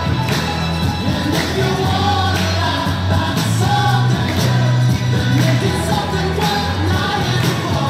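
Music: a song with singing over bass and a steady beat.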